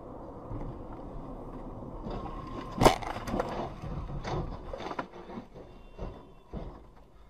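Road noise heard from inside a following car. About three seconds in, a car ahead crashes with one sharp, loud bang as it hits the roadside barrier, followed by a string of smaller bangs and clatters as it rolls onto its roof and debris scatters.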